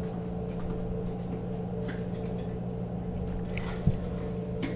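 Faint clicks and one sharper knock near the end as the logo cover and its screws are taken off a receipt printer with a Phillips screwdriver, over a steady low hum.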